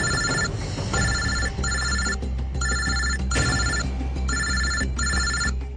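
Mobile phone ringing: short ringing pulses in pairs, repeating steadily and stopping near the end, over a low steady hum.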